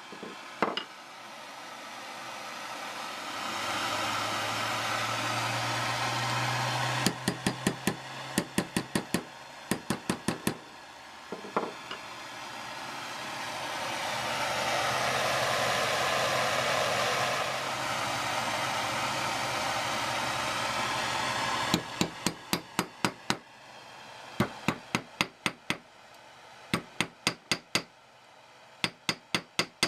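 Handheld propane torch burning with a steady hiss as it heats a steel screwdriver tip, twice, each spell broken off by quick runs of hammer blows on a steel block as the hot tip is reshaped. The longest run of hammering comes in the last third, in several short bursts.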